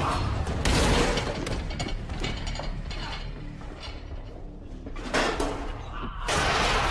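Fight sound effects: a rapid run of hits and scuffling with metal kitchenware clattering. The loudest crash comes about a second in, the middle few seconds are quieter, and another burst of crashes comes near the end.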